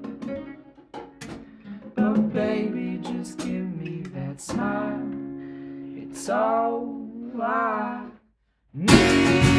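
Live acoustic band music: acoustic guitar playing with some wordless singing. The music stops for a moment a little after eight seconds, then the band comes back in louder and fuller near the end.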